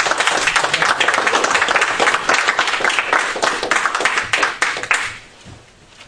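A small audience applauding, dense clapping that dies away about five seconds in.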